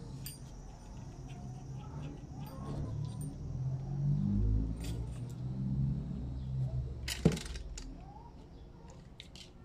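Light clicks and clinks of hands handling a stiff stripped wire and small magnets on a tabletop, with one sharp, loud click about seven seconds in.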